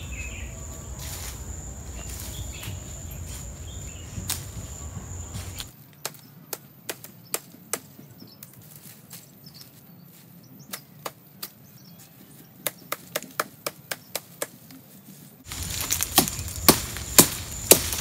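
A blade chopping palm leaves: sharp, quick strikes, two to three a second, in a run about six seconds in and another about eleven seconds in, with louder strikes near the end.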